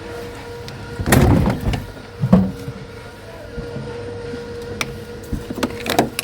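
Scrap items being pulled about and knocked together: a burst of rattling and clatter, then a loud knock about two seconds in, and a few sharp clicks near the end, over a steady low hum.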